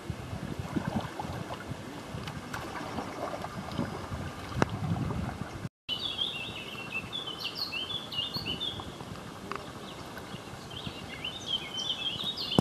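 Canoe paddling on calm water, with irregular low splashes and knocks of the paddles. After a brief dropout about halfway, a small songbird sings from the bank in quick bursts of short, high chirps.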